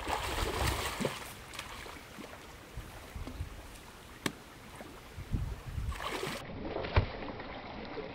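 A hooked catfish thrashing and splashing at the surface of a pond, loudest in the first second or so, with more splashing later, and one sharp knock about seven seconds in.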